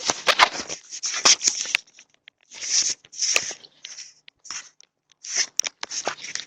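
Irregular bursts of scraping and rustling with sharp clicks, picked up by a Ring security camera's microphone: handling noise as the camera is grabbed and carried off.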